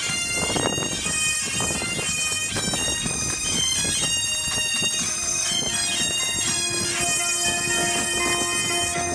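Pipe band's bagpipes playing a marching tune over their steady drone.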